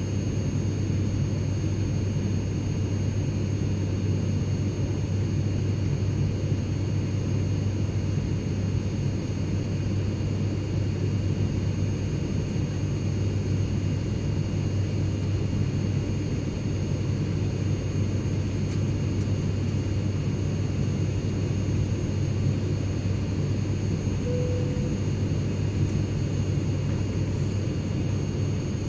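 Steady cabin noise inside a private jet in flight: an even low rumble with a faint high whine from the jet engines above it, unchanging throughout.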